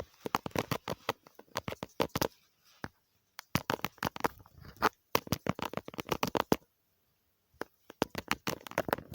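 Runs of rapid clicking and tapping, a "kachi-kachi" clatter, in four bursts of one to two seconds each with short pauses between them.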